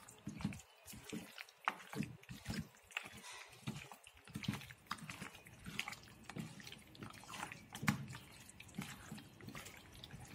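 Hands kneading chicken pieces in a thick, wet masala and flour marinade in a steel bowl: faint, irregular squelches and wet slaps.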